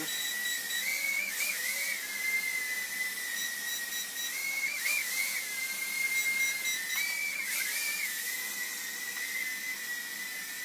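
Furibee H801 mini quadcopter's four motors and propellers whining at a steady high pitch while it hovers. About three times the pitch jumps up and wobbles briefly as it is steered.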